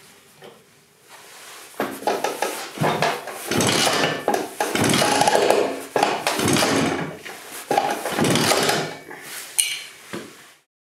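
Vespa PK50 XL's 50cc two-stroke single-cylinder engine being kicked over again and again, about once a second, with the clank of the kickstart lever, turning over without catching. The owner puts the failure down to having no easy-start spray.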